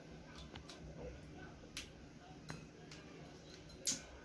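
Crimping tool being squeezed to crimp an RJ45 plug onto a UTP network cable: a few sharp clicks, the loudest near the end.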